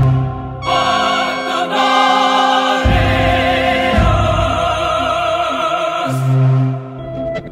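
Choral music: a choir singing long held notes with vibrato.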